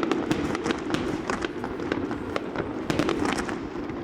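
Fireworks going off: a dense, irregular string of sharp crackling pops, many per second, over a steady lower rumble.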